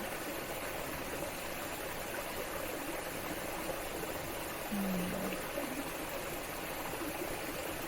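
Steady rushing of a stream's running water, with one short low tone about five seconds in.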